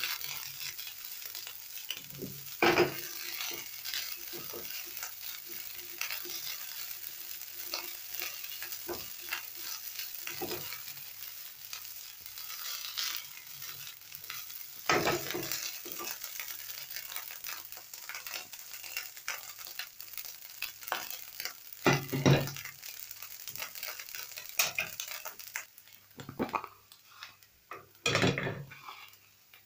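Egg fried rice sizzling as it is stir-fried and tossed in a nonstick pan, with scraping and several loud knocks against the pan. The sizzling dies down near the end.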